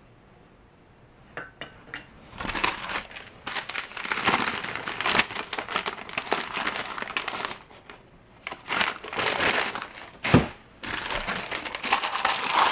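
Crumpled newspaper packing crinkling and rustling as it is unwrapped by hand, in spells with short pauses, starting about two seconds in. One sharp knock about two seconds before the end.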